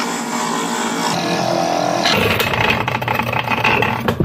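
A 10 by 18 inch mini wood lathe running while a parting tool cuts into a spinning resin blank. About two seconds in, the steady hum turns rough and clattering.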